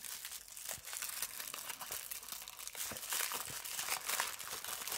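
Thin tissue paper crinkling as it is unfolded and pulled open by hand, a continuous run of small crackles.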